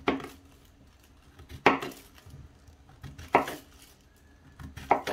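Kitchen knife slicing through a peeled zucchini into chunks, each cut ending in a knock on a plastic cutting board: four cuts about a second and a half apart.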